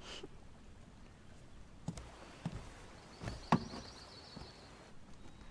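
Quiet background with a few soft knocks, the loudest about three and a half seconds in, and a faint high wavering tone in the second half.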